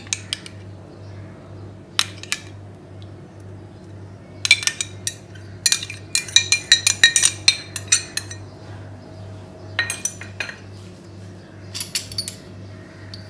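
A metal spoon clinks and taps against a small glass jug as yogurt is scraped out into a steel bowl of flour: single clicks, then a quick run of taps from about four to eight seconds in, and a few more near the end. A steady low hum runs underneath.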